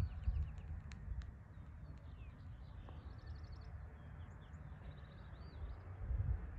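Songbirds chirping, with short calls and a couple of rapid trills, over a low, gusty rumble of wind on the microphone.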